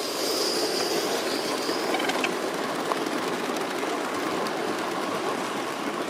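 Gauge One model train running along the track: a steady rolling rumble of wheels on rails with a few light clicks over the rail joints.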